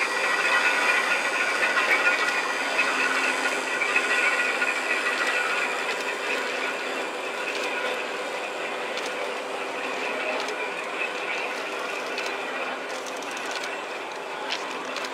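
Railway turntable rotating with an electric locomotive on it: the turntable's drive machinery runs with a steady whine of several tones over a mechanical grinding noise, easing slightly as it goes. A few faint clicks near the end.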